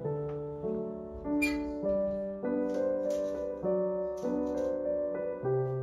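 Background piano music, one note or chord after another at an unhurried pace.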